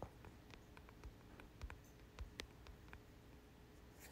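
Near silence broken by faint, irregular light taps: fingertips on a phone touchscreen while typing a search on its keyboard.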